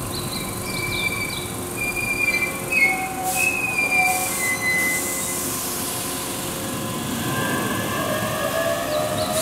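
Keihan 2200-series electric commuter train braking into a station and coming to a stop, its brakes squealing in high drawn-out tones, with two short hisses midway. Near the end a rising whine sets in.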